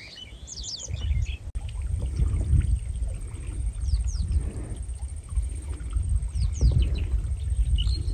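Wind noise on the microphone, an uneven low rumble that swells and fades in gusts, with small birds chirping in quick falling calls a few times over it.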